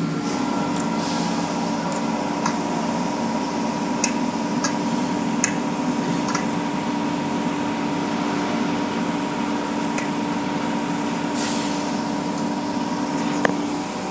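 Automatic car wash tunnel running, heard through a glass window: a steady machine hum over the hiss of spraying water, with a few sharp clicks.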